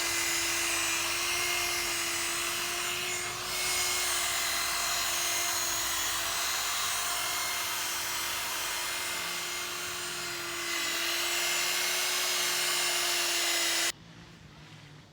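Electric machine polisher buffing car paintwork with finishing compound, its motor whining at a steady, even pitch, then switched off abruptly near the end.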